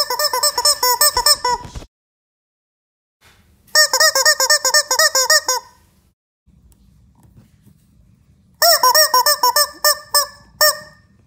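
Rubber chicken toys squeezed in rapid runs of honking squawks, three bursts of about two seconds each, that serve as the characters' lines of dialogue.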